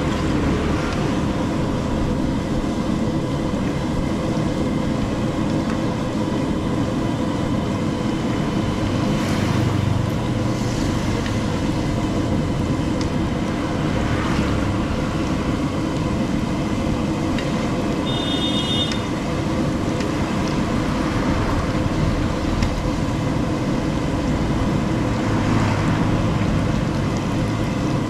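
Oil sizzling and bubbling as samosas deep-fry in a large iron kadai, over a steady low rumble.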